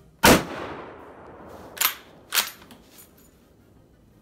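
Mannlicher M1895/30 straight-pull rifle firing a single old 8x56mmR round, a sharp report whose echo dies away over about a second. Two sharp metallic clacks follow about half a second apart as the straight-pull bolt is worked back and forward, then a few faint ticks.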